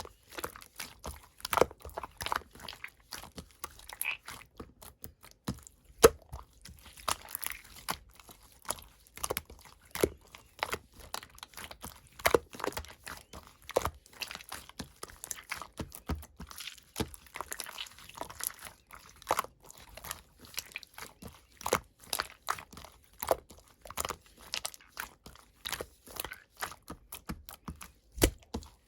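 Pink slime being squeezed, stretched and poked by hand, giving a dense run of irregular sharp pops and crackles, several a second.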